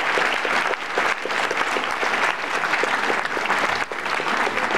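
Audience applauding: many hands clapping together, steady and dense.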